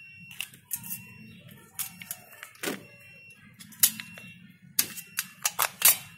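Sharp metallic clicks and snaps of the steel retaining springs on a motorcycle's slip-on exhaust joint as they are hooked and pulled into place by hand. There are about a dozen clicks at uneven intervals, the loudest a little under four seconds in and near the end.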